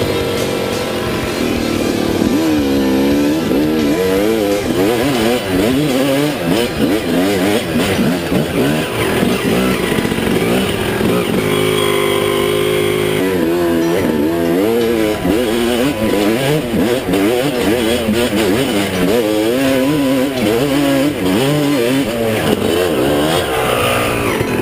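Dirt bike engine heard close up from the bike, revving up and down without pause while being ridden off-road over rough, rocky ground, with a short steadier stretch about halfway through.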